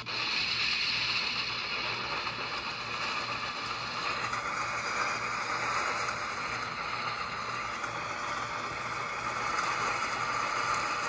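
ATSF (Santa Fe) caboose running along the track, a steady mechanical noise from the car as it moves, heard from aboard.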